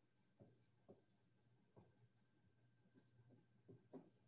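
Faint sound of a dry-erase marker writing on a whiteboard: light scratchy strokes with a few soft taps as the tip meets the board.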